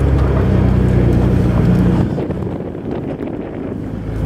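Off-road vehicle's engine running steadily, heard from inside the cab while driving, with wind on the microphone. About two seconds in the engine note drops away and quietens, then picks up again near the end.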